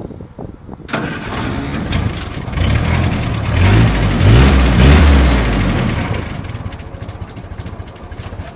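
Willys Jeep four-cylinder engine started on the key switch: it fires about a second in, is revved up and down a few times, then settles to a steady idle.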